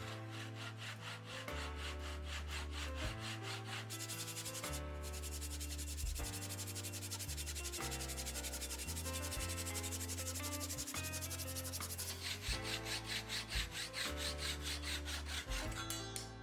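Wood being sanded, with rapid, evenly repeated rubbing strokes over background music that has a steady bass line.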